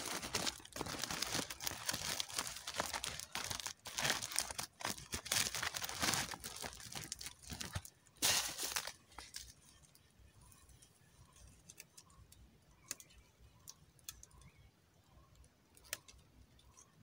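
Cloth sack rustling and crumpling in the hands, dense and scratchy, for about the first nine seconds. After that it drops much quieter, leaving only a few scattered light clicks and taps.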